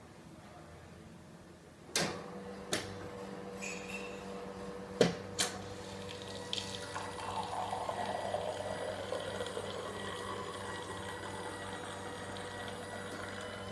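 Melitta bar-cube fully automatic coffee machine brewing a mug of café crème. A few sharp clicks and clunks come from the machine over the first few seconds. From about six seconds in, its pump runs with a steady hum while coffee pours from the twin spouts into the mug.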